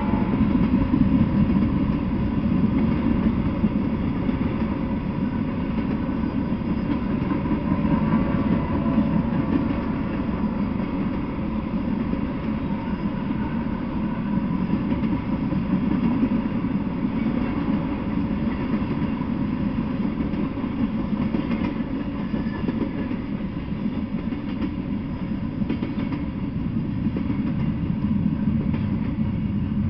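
Freight train of tank cars and then intermodal well cars rolling steadily past, with a continuous low rumble of steel wheels on the rail.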